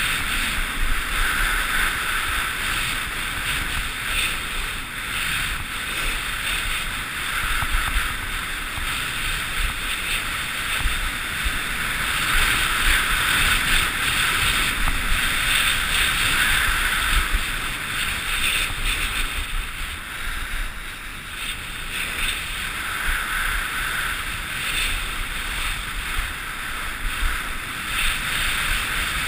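Steady rush of wind on a GoPro HD Hero's microphone during a fast ski descent at about 65 to 90 km/h, mixed with skis running over packed snow, swelling and easing slightly as the speed changes.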